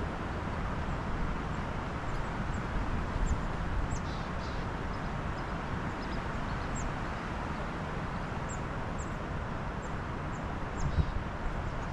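Strong wind rumbling and buffeting against the microphone in uneven gusts, with a small bird giving short, high, falling chirps again and again. There is a louder gust or knock about eleven seconds in.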